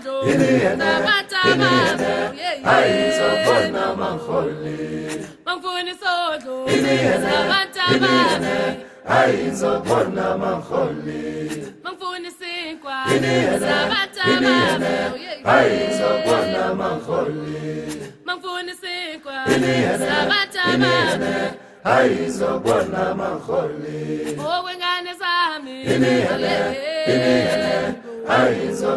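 A choir of several voices singing unaccompanied, in long phrases broken by brief pauses.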